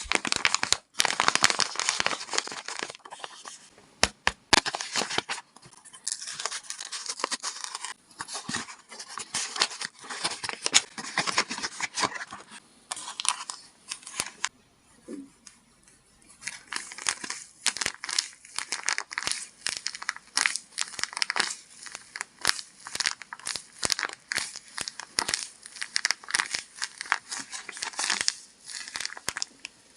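Paper being handled in crafting: crinkling and crumpling with sharp crackles and tearing, pausing briefly about halfway through.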